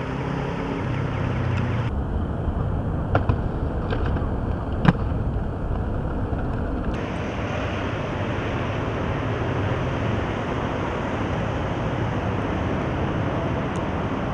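Steady outdoor traffic noise, with a few sharp knocks about three and five seconds in.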